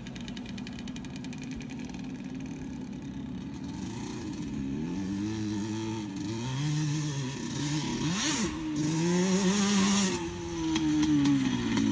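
Yamaha Banshee's two-stroke twin engine revving up and down, its pitch rising and falling again and again with the throttle. It is faint at first and grows louder as the quad comes closer, with one sharp drop and climb in pitch about two-thirds of the way in.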